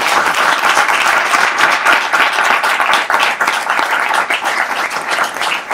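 Audience applauding, many people clapping at a fairly even loudness.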